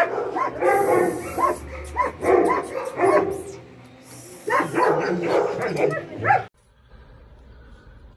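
Dog barking and yipping repeatedly in short calls, cutting off suddenly about six and a half seconds in.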